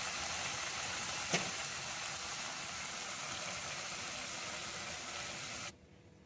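Chicken and green peas sizzling in a nonstick pan, a steady hiss with one light tap about a second in; the hiss stops abruptly near the end.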